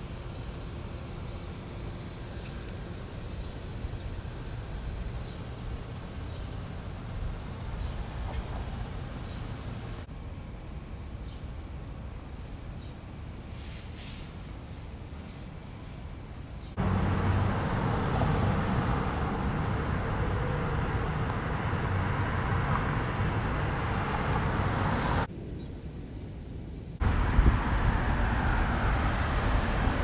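A steady, high-pitched insect drone, which cuts off about halfway through to a louder rushing noise of wind and road traffic. The insect drone returns briefly near the end, then gives way to the traffic rush again.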